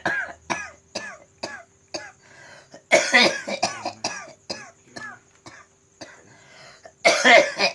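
A person coughing in fits: a loud, harsh cough about three seconds in and again near the end, each trailing off into a string of shorter, weaker coughs. It is the sufferer's persistent cough.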